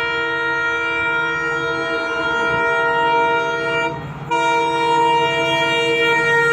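WDP4D diesel locomotive's horn sounding a long, steady multi-note chord, cut off briefly about four seconds in and then held again, over the low rumble of the train.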